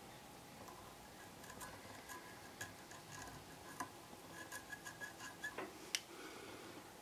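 Faint ticking and tapping as a silver paint-pen nib is dabbed against a small clear plastic light lens. There is a quick run of small ticks about four to five seconds in and one sharper click near the end.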